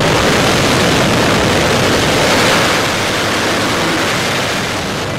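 Loud rushing wind of the airstream buffeting the microphone at a jump plane's open door in flight, covering the engine. It comes on suddenly, is loudest about halfway through and then eases a little.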